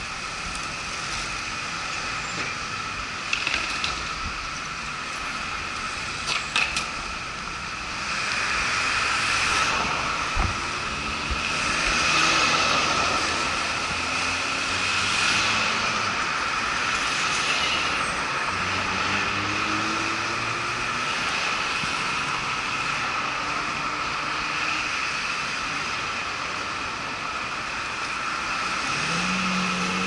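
City street traffic heard from a bicycle: cars passing and accelerating, with engines rising in pitch, over road and wind noise. A steady high whine runs throughout, and there are a few sharp clicks in the first several seconds.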